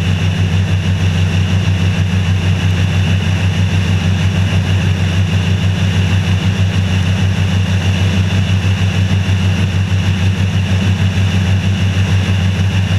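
Bass boat outboard motor running steadily at speed, a loud even drone with a rush of wind and water over it.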